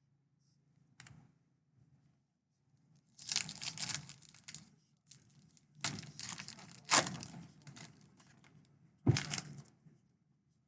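A trading-card pack wrapper being torn open and crinkled, in three stretches of tearing and rustling with a sharp snap about seven seconds in.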